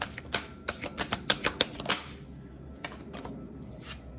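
Tarot cards being handled: a quick run of sharp card snaps and taps over about two seconds, then a few scattered ones.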